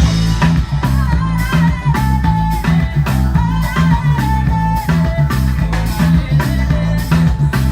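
A live rock band playing: drum kit keeping a steady beat under a moving bass line and a lead guitar melody.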